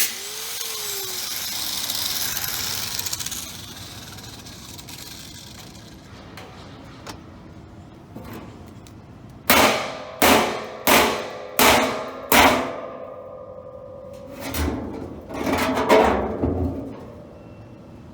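An angle grinder with a metal cut-off wheel stops and winds down with a falling whine. Later a heavy hammer strikes the steel drum's lid five times about 0.7 s apart, with sharp ringing clangs, then a few more ringing clangs near the end, knocking the ground-through lid seam loose.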